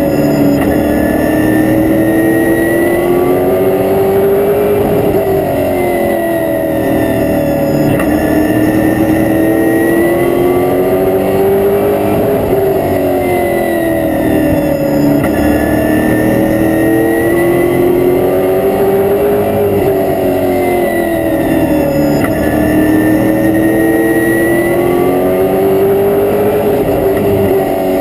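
Stock car's V8 race engine heard from inside the cockpit, revving up and then easing off in a smooth rise and fall that repeats about every seven seconds as the car laps a short oval.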